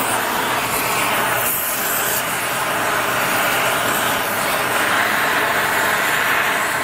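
Oxy-fuel cutting torch running with a steady, loud hiss as its flame cuts through a seized, rust-bound centrifugal pump impeller on its shaft.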